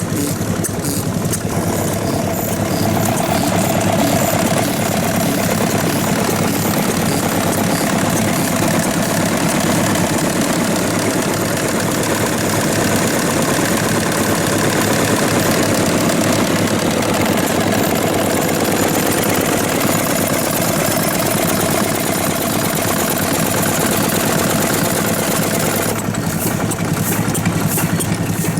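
Vintage stationary farm engines (hatsudoki) running steadily, a continuous mechanical chugging.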